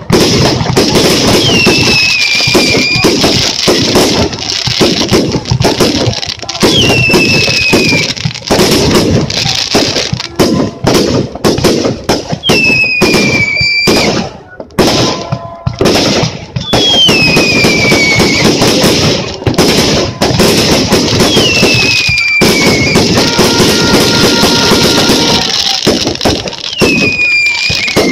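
Fireworks display firing: a dense, rapid crackle of bursting shots and sparks. Every few seconds a whistle falls in pitch.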